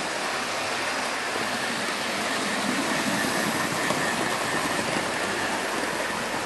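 Hornby OO gauge model of an LMS Princess Royal Class steam locomotive running fast on the track, its electric motor whirring and wheels rumbling over the rails as a steady noise, a little louder about three seconds in as it passes close.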